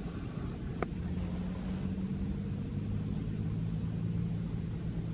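Steady low engine drone from a distant motor, with one brief click about a second in.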